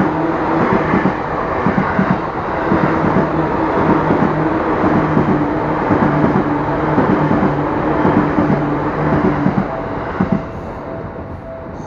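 Seibu Railway commuter train passing a level crossing: a rush of wheel and track noise that swells and fades away near the end, with regular clacks of the wheels over the rails. The crossing's warning bell rings steadily through it.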